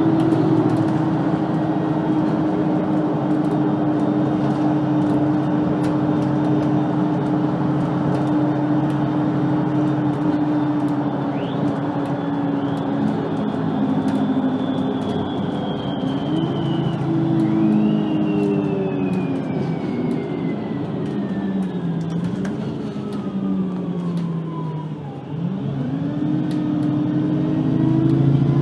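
VDL Citea LLE-120 city bus running at a steady engine speed, then a high whine sliding down in pitch as the bus slows, with the engine note swinging up and down through gear changes. It dips briefly near the end and then climbs again as the bus pulls away.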